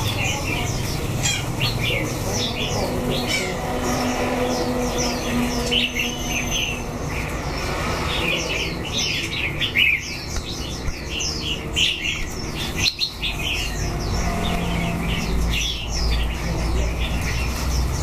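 Many caged songbirds chirping and calling at once: a dense, continuous chatter of short high chirps, with a low rumble underneath that swells about two-thirds of the way through.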